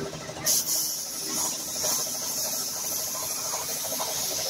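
Compressed-air spray gun hissing steadily as it sprays the red colour coat onto a primed motorcycle fuel tank. The spray starts about half a second in.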